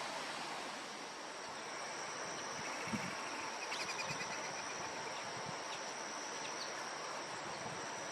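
A steady high insect trill over an even hiss, with a soft thump about three seconds in, a quick run of rapid bird notes about four seconds in and a couple of single bird chips after it.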